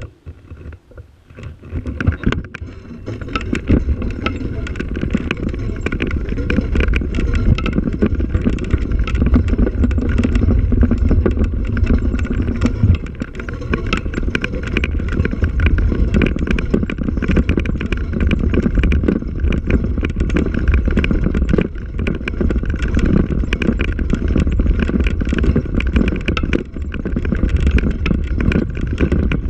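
Ride noise of a vehicle moving over a rough, leaf-covered dirt track: a dense low rumble full of small knocks and rattles. It starts suddenly and builds over the first few seconds, then stays steady and loud.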